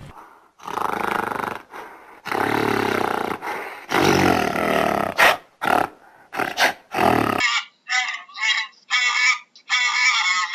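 A large animal roaring and growling in several long, rough calls, followed about seven seconds in by a different series of short, high, pitched calls.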